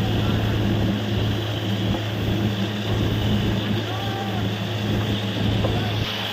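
Borewell drilling rig's engine running steadily at a constant pitch, under a loud even hiss.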